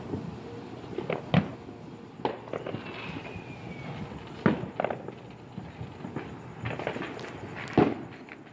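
Fireworks and firecrackers going off: a string of sharp bangs and pops at irregular intervals, the loudest shortly after the start, midway and near the end. A faint falling whistle runs about three seconds in.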